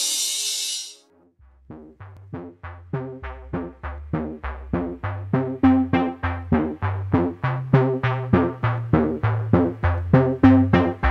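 Background music: a crash fades out, a short pause follows, then a new tune starts with evenly repeated plucked-sounding notes over a bass line, about three to four notes a second, growing louder.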